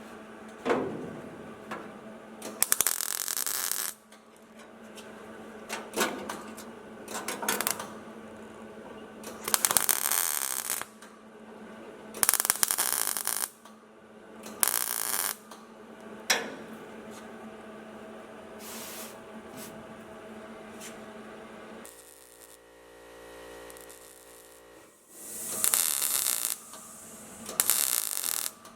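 MIG welder laying short tack and stitch welds into steel body panels: a series of crackling bursts, each lasting about half a second to a second and a half, over a steady low hum.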